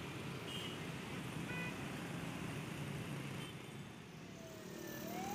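Steady city road traffic heard from a moving motorcycle, with motorbikes and cars all around. Near the end a siren starts to wail, rising in pitch.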